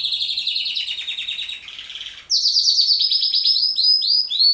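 Pet songbird singing: a fast trill that slides slightly lower, then from about two seconds in a louder run of quick downward-swept notes, about four a second.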